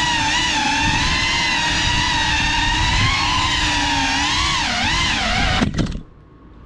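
GEPRC Cinelog 35 cinewhoop drone's motors and ducted propellers whining, the pitch rising and falling with throttle. Near the end a few sharp knocks as it crashes, and the motor whine cuts off suddenly.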